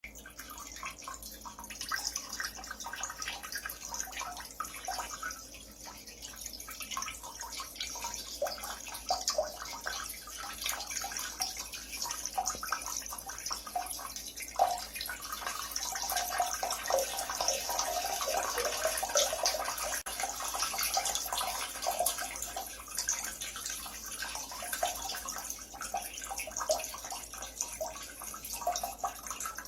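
A stream of urine splashing into toilet water, steady and continuous, growing somewhat louder past the middle.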